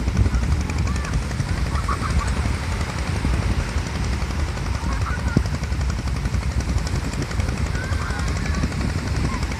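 Wind buffeting the phone's microphone in a steady, crackling rumble over the wash of the sea, with a few faint distant calls.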